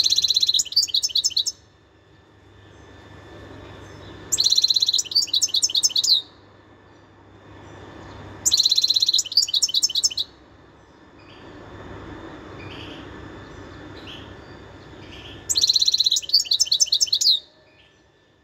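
European goldfinch singing in four short bursts of rapid, high, twittering trills, each about one and a half seconds long with a few seconds' pause between them.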